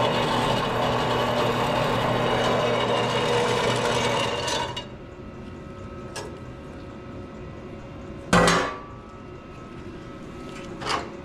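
A steady machine running, which stops about five seconds in, then a few sharp knocks, the loudest about eight seconds in.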